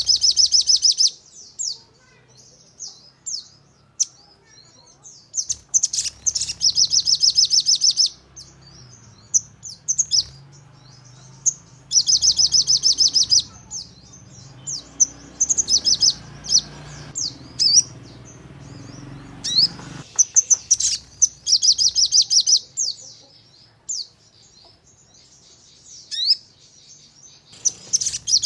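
Sogon bird singing: about five fast, tightly packed trilled bursts of the 'nembak' kind, each a second or two long, with short high chirps scattered between them.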